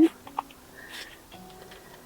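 Faint background music with steady held notes, and a light click about half a second in.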